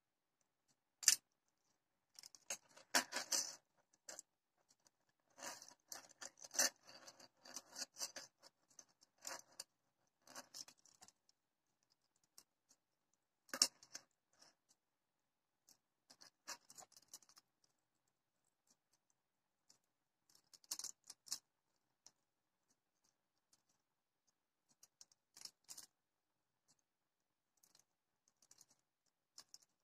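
Stiff acrylic flower petals and thin wire being handled and twisted together by hand: intermittent crinkling and sharp clicks in short spells, with quiet gaps between.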